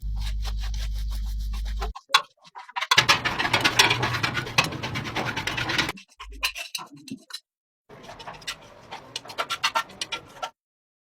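A steady low hum, then bouts of rapid scraping and scratching in short cut-together pieces, ending abruptly.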